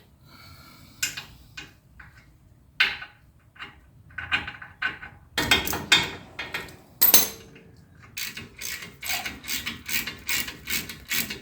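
Hand ratchet wrench clicking as the brake caliper bolts are run in and tightened. The clicks come in short runs, scattered at first, then a dense run in the middle and an even run of about four a second over the last few seconds.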